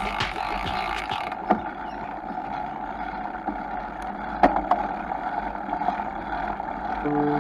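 Bicycle ride heard from a camera mounted by the front wheel: the tyre rolling on concrete and wind on the microphone make a steady rushing noise. Two sharp knocks come about one and a half and four and a half seconds in. Near the end a few steady tones begin.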